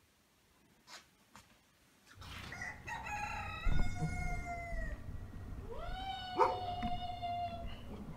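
A rooster crowing twice, each crow long and drawn out and falling in pitch at the end. A couple of sharp knocks come during the crows.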